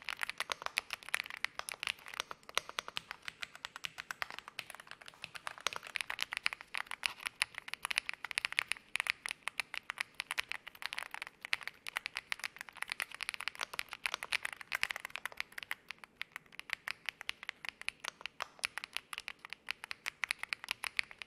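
Continuous typing on an EPOMAKER Galaxy80 full-aluminium mechanical keyboard with PBT keycaps: a dense run of key clacks, several strokes a second.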